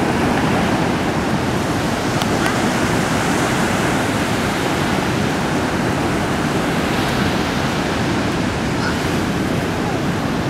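Ocean surf breaking and washing up a sandy beach: a steady, unbroken rush of wave noise.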